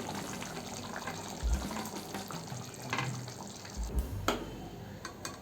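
Faint kitchen sounds: a low, steady noise with a few light knocks of utensils against a pot.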